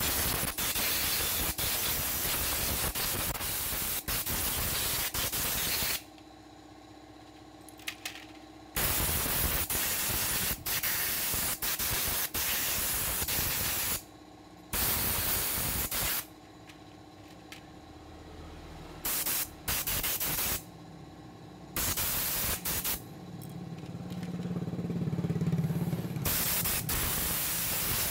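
Compressed-air blow gun blasting a cleaned motorcycle carburetor and its float bowl dry: a loud hiss of air, one long blast of about six seconds, then more blasts of a few seconds or less with short pauses between.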